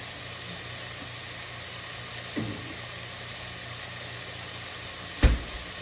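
Steady hiss of ground turkey frying in a pan, with a light knock about halfway through and a louder thump near the end.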